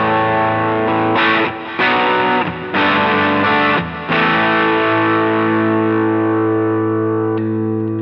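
Sterling Majesty X electric guitar on its bridge pickup through a crunchy overdriven tone, playing a few short chord stabs. About four seconds in, the last chord is left to ring out.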